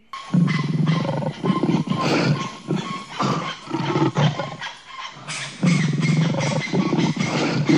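Tiger roaring and growling in a run of loud, rough, pulsing calls that start abruptly, with a lull a little past the middle before the calling picks up again.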